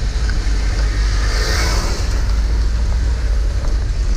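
Volkswagen Kombi van on the move: steady low engine and road rumble, with a brief hiss about a second and a half in.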